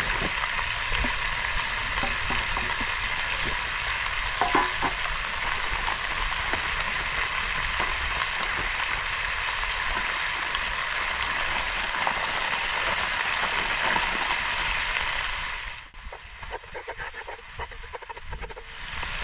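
Chicken thighs and minced garlic sizzling as they fry in oil in a cast-iron dutch oven, with a few clicks and scrapes. The sizzle drops away abruptly about three-quarters of the way through and returns near the end.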